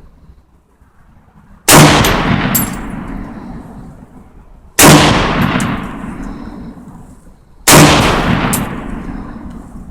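Three single rifle shots from a Saiga AK-pattern semi-automatic rifle, fired slowly about three seconds apart, each followed by a long echo that fades out.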